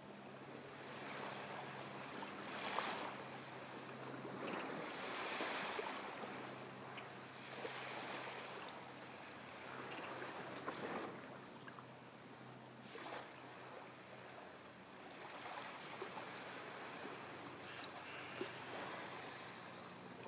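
Small waves lapping and washing up on a sandy beach, swelling and fading every two to three seconds. A faint steady low hum runs underneath.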